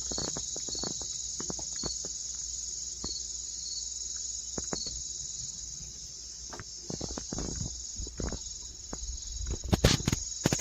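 Steady, high-pitched chorus of insects such as crickets, with scattered short clicks and knocks, a few louder ones near the end.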